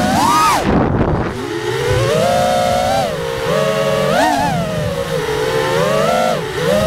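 FPV racing quadcopter's brushless motors and propellers whining, the pitch rising and falling again and again as the throttle is worked through fast low passes.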